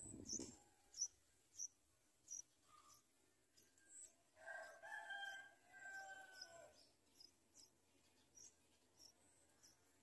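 Faint, thin high peeps from bulbul nestlings in the nest, repeating about every half second to a second. A brief rustle comes at the very start, and a longer, lower call with several pitches sounds about halfway through.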